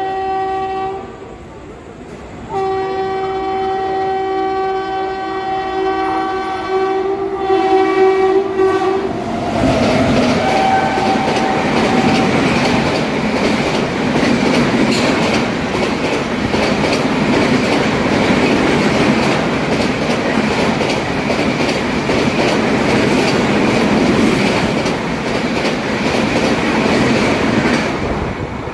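Approaching express train's locomotive horn: a short blast, then a long blast of about six seconds. It is followed by the steady running noise of wheels on rail as the express and its LHB coaches pass through the platform at speed, with one more brief horn note as the locomotive arrives. The running noise fades just before the end.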